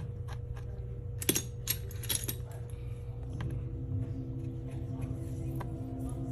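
A few sharp clicks and light metallic taps of small hard parts being handled on a workbench, the loudest about a second in and again about two seconds in, over a steady low hum.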